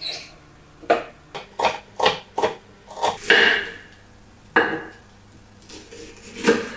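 Kitchen knife slicing an onion on a wooden cutting board: irregular knocks of the blade against the board, several in quick succession in the first half, then a few spaced-out strokes.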